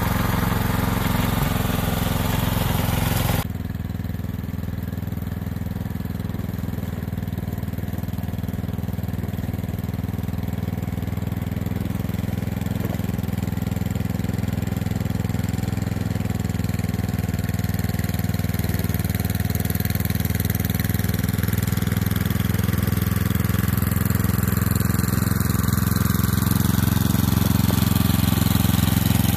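Small gasoline engine of a tracked two-stage snowblower running steadily under load as it throws snow. The sound changes abruptly about three seconds in, then grows slightly louder near the end as the machine comes closer.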